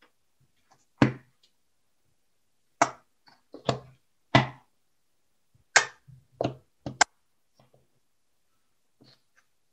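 A run of sharp, irregular knocks and taps, about eight in all over several seconds, from a plastic squeeze bottle of paint being squeezed and handled over a metal baking tray.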